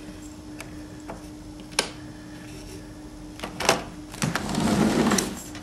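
A sliding patio door being handled: a few sharp clicks and knocks, then about a second of scraping rumble near the end as it slides open. A faint steady hum runs underneath.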